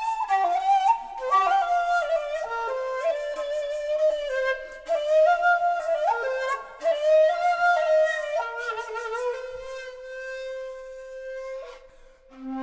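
Solo shakuhachi playing a slow melody, one breathy flute line moving from note to note, then holding a long low note that fades out near the end before a new phrase begins.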